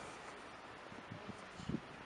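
Steady outdoor background noise with a couple of soft low thuds about a second and a half in.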